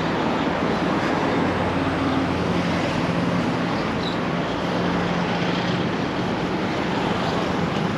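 Street traffic: a steady wash of passing cars and motorbikes, with a low engine hum through the middle.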